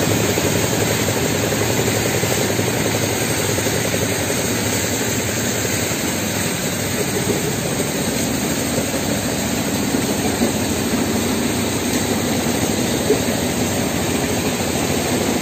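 Stone crusher running steadily, a continuous loud mechanical din.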